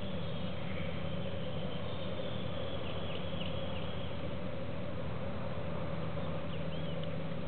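Outdoor background: a steady low hum under faint, thin high-pitched chirps that come about three seconds in and again near the end.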